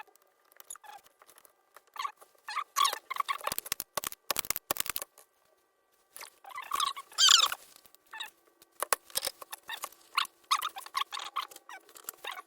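Irregular scratching, squeaking and clicking from small hand work on electronics, in short scattered bursts with gaps between them, over a faint steady tone.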